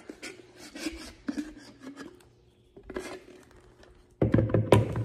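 A wooden spatula scrapes mayonnaise out of a jar into a mixing bowl, making small scrapes and clicks. Near the end comes a louder run of knocks and thumps.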